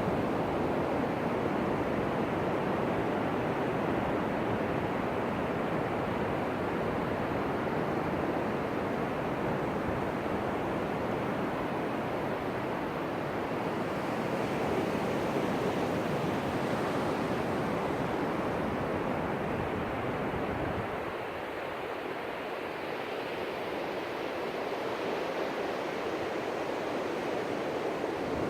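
Ocean surf: waves breaking and washing up the shore in a steady, continuous rush, easing off a little about three-quarters of the way through.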